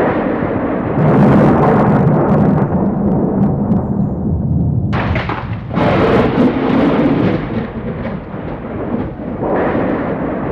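Thunder: a crackling clap about a second in that rolls into a long rumble, a second sharp crack about five seconds in, and another swell of rumbling near the end.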